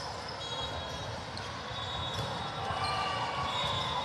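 Echoing din of volleyball play in a large hall: a ball being struck and bouncing on the courts, with short high squeaks and voices in the background.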